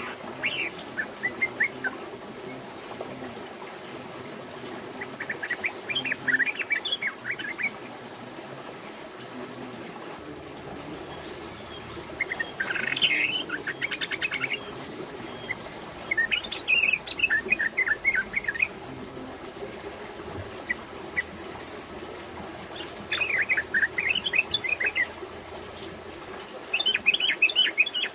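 Female yellow-vented bulbul (trucukan) singing its rapid chattering 'ropel' song. The phrases come in about six bursts of quick high notes, each about two seconds long, with pauses of a few seconds between.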